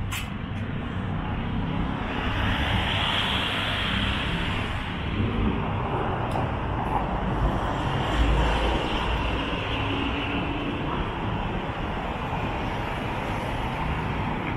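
Street traffic over a steady low rumble, with vehicles passing and the noise swelling twice, about two to five seconds in and again around eight to ten seconds in.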